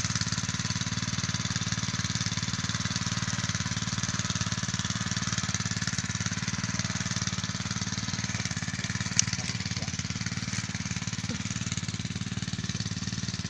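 A small engine running steadily at an even speed, with one sharp click about nine seconds in.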